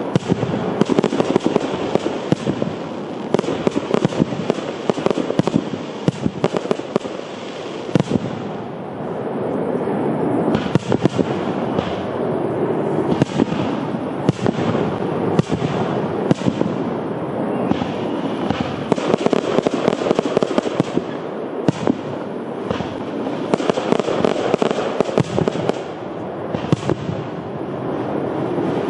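Fireworks display: a continuous barrage of aerial shell bursts, bangs and crackling, densely packed and without a break.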